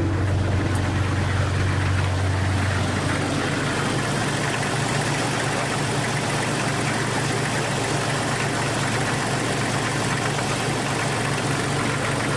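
Jeep Cherokee engine idling with the air conditioning on and the blower fan pushing air through the vents, a steady hum under a rushing hiss. The AC compressor does not engage, which the owner takes for low refrigerant.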